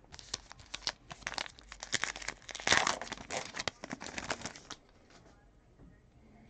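A 2020 Topps Allen & Ginter trading-card pack wrapper being torn open and crinkled by hand: a dense run of crackling rustles, loudest about midway, stopping after about five seconds.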